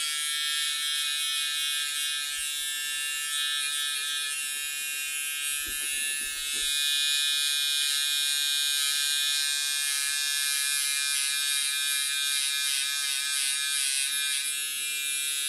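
Electric hair clippers buzzing steadily while trimming hair at the neckline, with the pitch wavering slightly in the second half.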